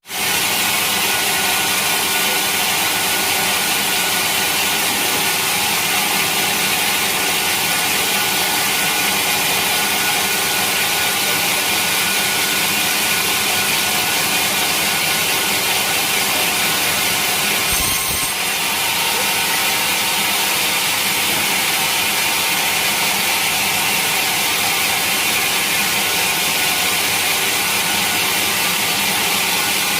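Sawmill saw cutting through a large teak log: a loud, steady mechanical drone with a strong high hiss, unbroken throughout, with a brief knock about eighteen seconds in.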